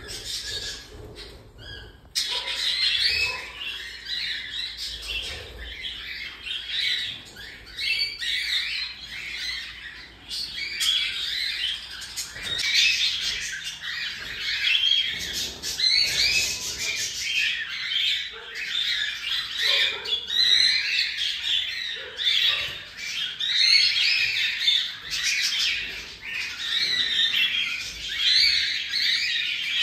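Cockatiels chirping and squawking continuously, a dense chatter of many overlapping calls that fills in about two seconds in.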